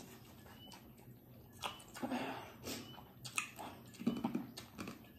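Close-up chewing and mouth sounds of people eating spicy instant noodles, with scattered soft clicks.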